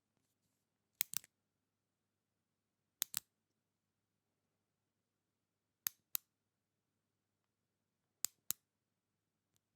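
Retractable pen clicking: four quick double clicks, a few seconds apart, with a faint single click near the end.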